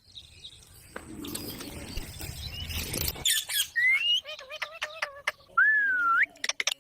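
Pet parrot calling: a run of short chirps and squawks, then a longer whistle that dips and rises, after a stretch of rustling noise in the first half.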